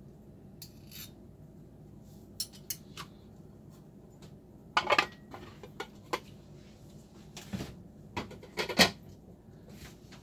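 Steel knife and fork clinking and scraping against a ceramic plate while cutting soft food, then the cutlery being set down with louder clacks. The loudest clacks come about five seconds in and again near the nine-second mark.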